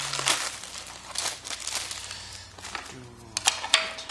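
Plastic packaging crinkling and rustling as it is pulled open, with a few sharp clicks near the end.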